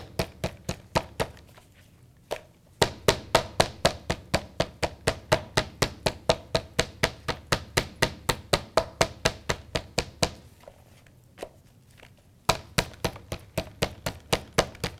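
Metal meat tenderizer pounding a boneless, skinless chicken breast on a cutting board, flattening it into a cutlet about half an inch thick. Quick, even blows about four a second, in three runs with short pauses about two seconds in and from about ten to twelve seconds.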